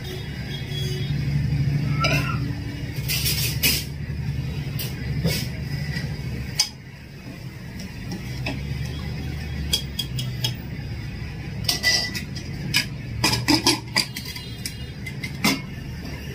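A metal spoon clinking and scraping against a steel pressure cooker pot while stirring, with sharp metal clinks as the lid goes on, thickest in the second half. A steady low hum runs underneath and dips briefly about six and a half seconds in.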